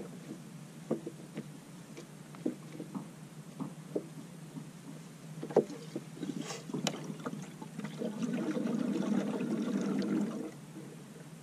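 Hard plastic clicks and knocks as the spill-proof spout of a Husqvarna combi fuel can is pressed and shifted against a chainsaw's fuel filler. Near the end, fuel runs into the tank as a steady low rush for about two seconds, then cuts off abruptly.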